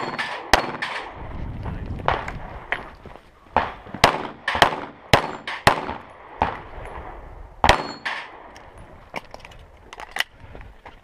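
CZ 75 Compact L 9mm pistol fired rapidly, about a dozen shots, often in quick pairs about half a second apart with short pauses between. A faint ringing tone follows a few of the shots.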